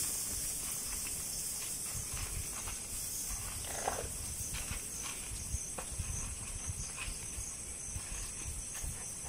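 Wild Sri Lankan elephants moving about on a dirt track, with a short elephant call about four seconds in and soft low thuds from their movement, over a steady high-pitched drone of insects.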